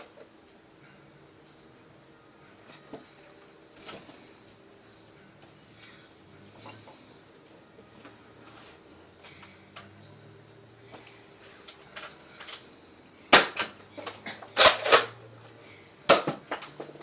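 Sharp snaps of a Nerf battle, blasters firing and foam darts striking: about four loud, short cracks in the last few seconds after a long quiet stretch of faint clicks and shuffling.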